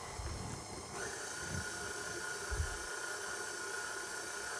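Electric stand mixer running as it mixes bread dough, its motor starting about a second in with a steady whine over a hiss. A low thump comes about two and a half seconds in.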